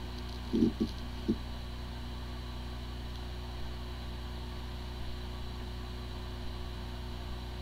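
Hard drive with corrupted firmware spinning with a steady hum. It sounds like a healthy drive even though the computer cannot detect it. Three short, soft low sounds come in the first second and a half.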